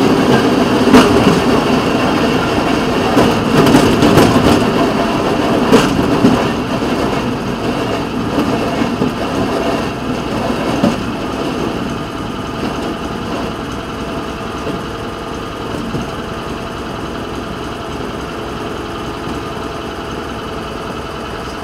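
Small engine of a rail speeder (track motorcar) running as it rolls slowly over yard track, with a few sharp clacks from the wheels over joints and switches in the first six seconds. It eases off about twelve seconds in and settles to a steady idle as the speeder stops.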